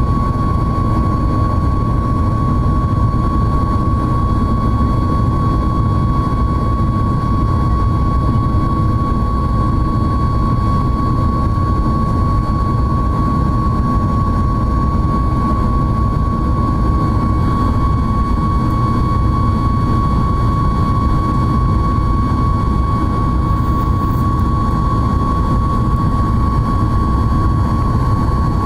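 Boeing 737-8 MAX's CFM LEAP-1B turbofan engines in cruise flight: a loud, steady low roar with a constant high-pitched whine over it.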